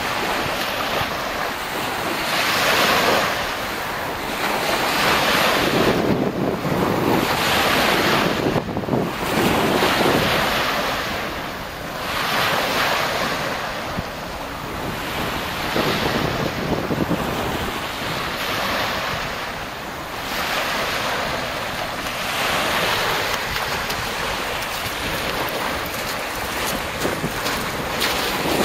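Small waves breaking and washing up a pebble-and-shell beach, the rush swelling and fading every two to three seconds, with wind buffeting the microphone.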